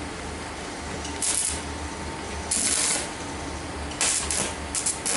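Arc of a CNR 120 MOSFET inverter stick welder being struck with a 4 mm electrode: short hissing bursts about a second in, near three seconds, and a cluster between four and five seconds, over a steady low hum.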